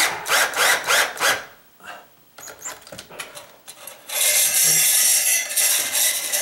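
Cordless drill-driver driving square-drive drywall screws through a grab bar's mounting flange into drywall and wood: a few short trigger bursts at first, then a pause with small clicks, then a steady run of about two seconds from around four seconds in.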